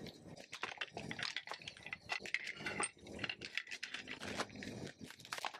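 Irregular light clicks, taps and knocks of collapsible dog bowls, plastic containers and a mesh pouch being handled and set down on a slatted wooden table while dog food is laid out.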